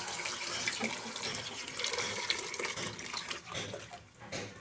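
Thin gram-flour batter being poured into a kadai of sautéed spinach: a steady liquid pouring and splashing that tapers off near the end.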